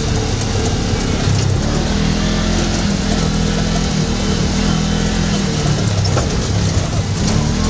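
ATV engine running while the machine is driven off-road, its pitch stepping up and down as the revs change.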